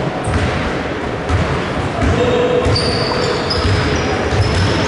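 Basketball bouncing on a hardwood gym court in repeated low thumps, with short high squeaks over a steady hall background in the second half.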